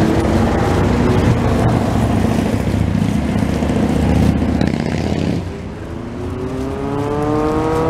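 Street traffic: a motor vehicle's engine runs loud and close. About five and a half seconds in, the sound dips, and then a vehicle accelerates away, its engine note rising steadily in pitch.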